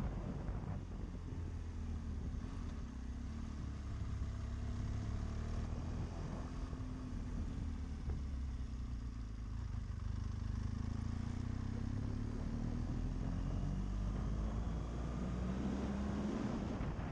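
BMW GS adventure motorcycle's engine running under way, its pitch rising and falling with the throttle.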